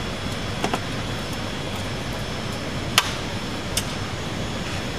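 Steady background hum with a few light metallic clicks of a screwdriver and hardware as the ground cable is unfastened from the recloser control chassis; the sharpest click comes about three seconds in.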